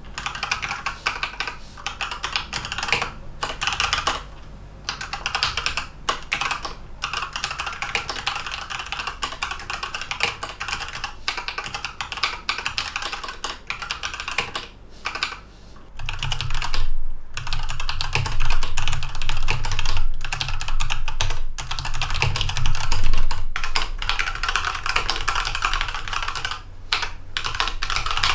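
Fast, continuous typing on a Varmilo 109 Calculator JIS keyboard with electrostatic capacitive (non-contact) switches: rapid key clicks with a few brief pauses.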